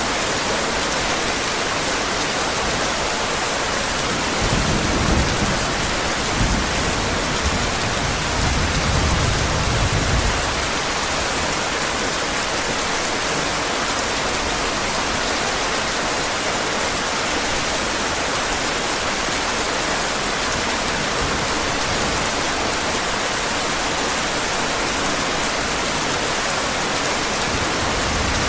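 Steady heavy rain, with distant thunder rumbling low twice, about four seconds in and again around nine seconds in.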